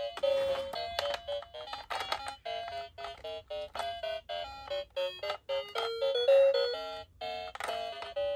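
A bright electronic beeping melody: short notes following one another quickly.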